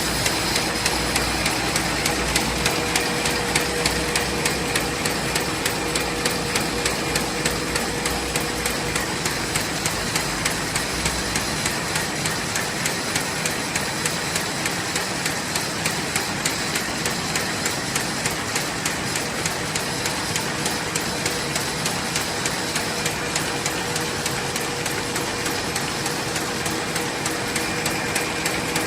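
Fully automatic paper bag machine running at high production speed: a steady mechanical clatter with a regular knock about two to three times a second as it cycles, over a steady hum.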